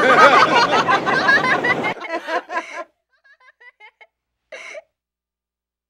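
A woman laughing in short bursts over a steady hiss of wind and surf, cut off abruptly about two seconds in; after that only a few faint, short sounds.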